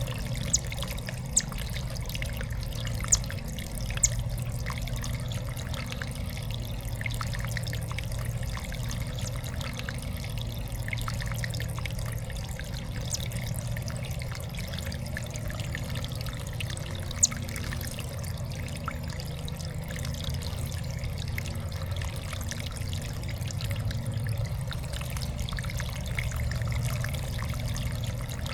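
Water trickling steadily in a backyard bird-spa water feature, with a few sharp clicks in the first four seconds and one more later on.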